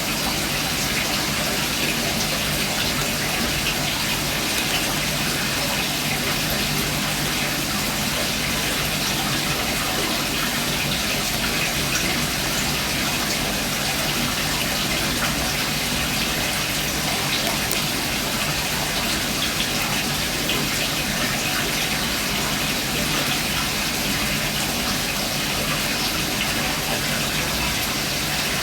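Steady rushing splash of aquarium water being circulated, even and unbroken, with a faint low hum underneath.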